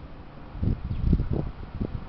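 Wind buffeting the microphone in irregular low rumbling gusts, starting about half a second in.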